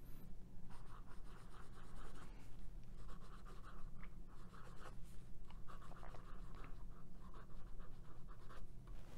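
Pelikan M400 fountain pen's 14k gold extra fine nib scratching across Rhodia 80 gsm lined paper in short strokes with brief pauses, writing cursive loops and letters. The nib gives some feedback, a little roughness, though it writes fairly smoothly.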